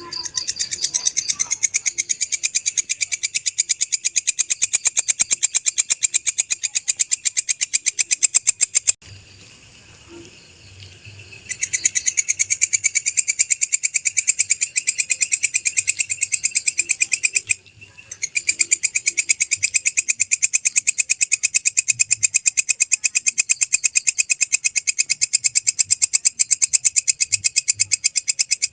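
Walang kecek (belalang kecek) insect singing: a rapid, even train of high, shrill chirps. The song breaks off about a third of the way in, resumes a couple of seconds later, and pauses again briefly past the middle.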